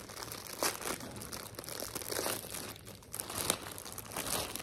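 Packaging crinkling in irregular crackles as it is handled and opened to take out a sweatshirt.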